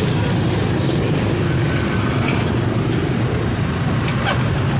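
Congested motorbike traffic: many small motorbike engines running together at crawling speed in a steady drone.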